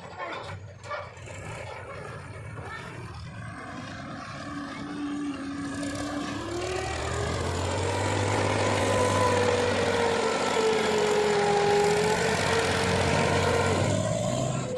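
Diesel engine of heavy machinery revving up, rising in pitch and growing louder from about four seconds in, held at high revs, then dropping off right at the end.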